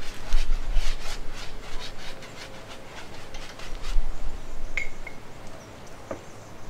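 A brush scrubbing paint onto a stretched canvas in quick, rhythmic strokes, about four a second, thinning out after the first few seconds.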